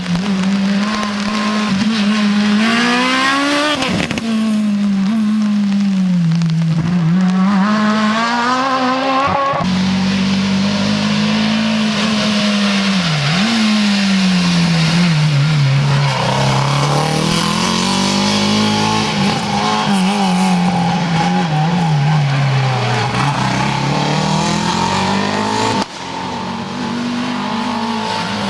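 Rally car engines at full throttle on a special stage, the pitch rising through each gear and dropping at the shifts and on lifting off. The sound comes in three separate stretches, with sudden cuts about ten and twenty-six seconds in.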